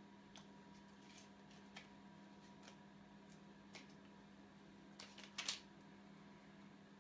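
Near silence over a steady low hum, broken by a few faint clicks and taps. A short louder cluster of clicks comes about five seconds in.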